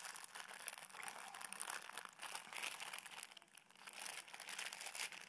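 Plastic bag of frozen rice medley crinkling and crackling as it is handled, an irregular run of small crackles.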